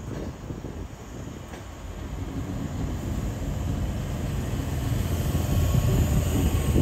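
Sydney Trains K-set double-deck electric train approaching, a low rumble growing steadily louder.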